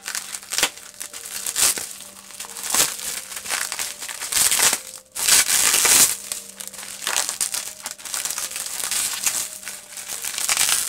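Plastic bubble wrap crinkling and rustling as it is pulled and unwrapped by hand, in irregular bursts with a louder stretch of crackling about halfway through.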